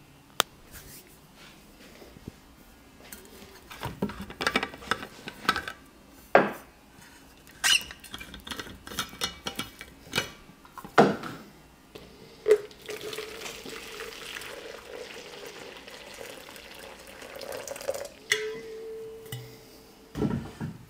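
Clicks and clinks of a stainless steel vacuum flask and a plastic measuring jug being handled, then water poured from the flask into the jug in a steady stream for about five seconds, followed by a shorter second pour and a thump near the end.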